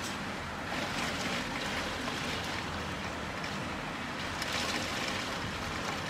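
Torrential wind-driven rain pouring down in a windstorm, a steady, unbroken rush.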